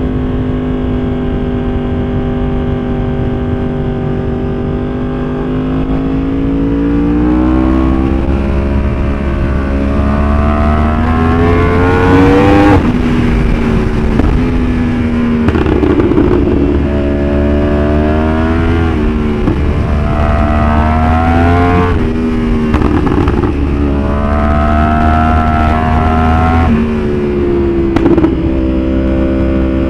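Yamaha R1's inline-four engine, running steadily at first and then pulled up through the revs again and again, its pitch climbing and dropping with each shift. There is a sharp pop about two seconds before the end, from the bike's pop-and-bang ECU tune.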